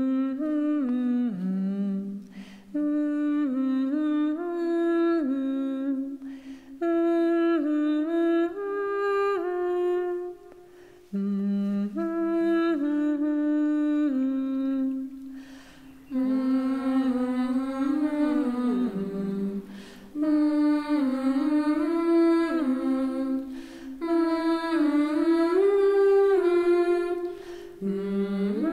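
A voice humming a slow wordless melody, phrase by phrase, with short breaks between phrases.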